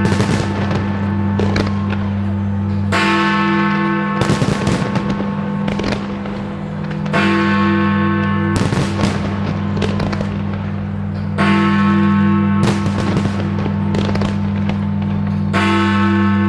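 Big Ben striking the hours of midnight: four slow, deep bell strokes about four seconds apart, each ringing on and fading. Fireworks bang and crackle between the strokes.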